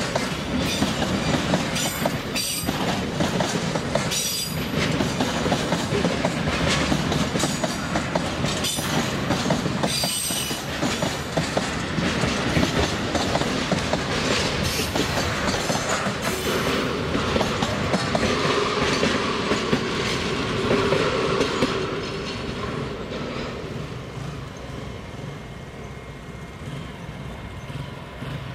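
Freight train wagons rolling past, their steel wheels clicking steadily over the rail joints. A brief ringing squeal from the wheels comes about two-thirds of the way through. Near the end the sound fades as the train moves off.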